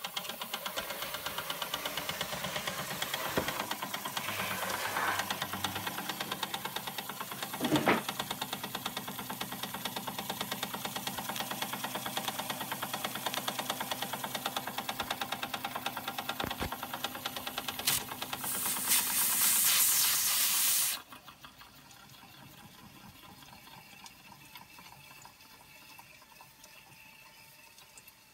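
Antique Schoenner toy steam engine with a vertical brass boiler running fast, a rapid, even chuffing of exhaust steam. About 18 seconds in, a loud hiss of steam lasts two seconds and cuts off suddenly, and the running is quieter afterwards.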